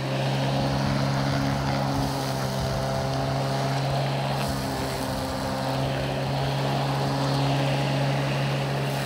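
Corded electric lawn mower running with a steady motor hum and blade whirr as it is pushed over long grass.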